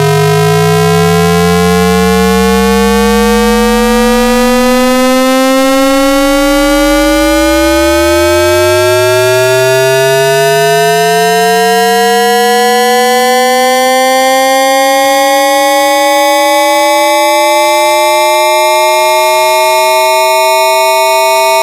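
AM radio sound effect: a loud stack of whistling tones sliding slowly in pitch, most of them rising gradually. A low tone sinks to a hum in the first few seconds, and another climbs back up out of the hum from about seven seconds in.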